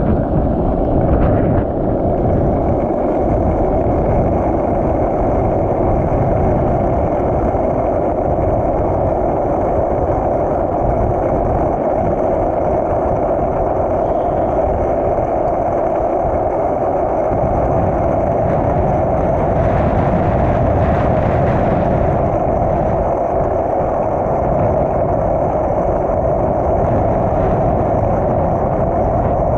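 Skateboard wheels rolling fast down a long, smooth asphalt hill: a steady, loud rolling rumble.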